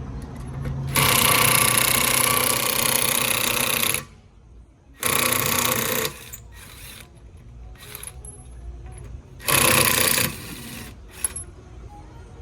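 Impact wrench hammering on the wheel's lug nuts in three bursts: a long one of about three seconds, then two short ones of about a second each.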